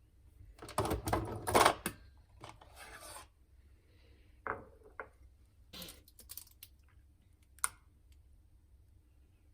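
Rustling and handling noise for the first few seconds, then a few scattered sharp clicks and knocks.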